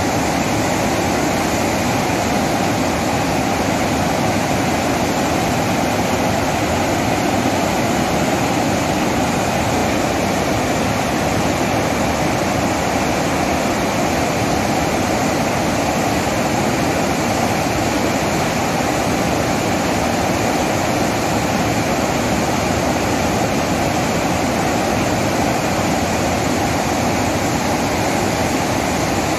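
Floodwater from the open spillway gates of Hirakud Dam rushing down into the river below: a loud, steady roar of falling water.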